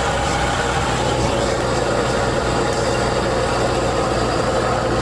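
Straight-piped Caterpillar C15 diesel of a semi truck with no muffler, running steadily at cruise, its exhaust heard loud through an open cab window.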